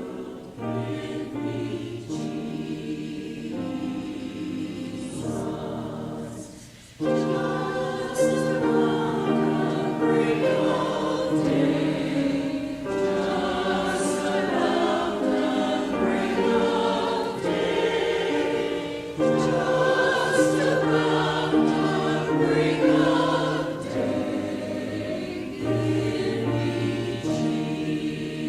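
Church choir singing a hymn in parts, with a short break about seven seconds in before it comes back louder.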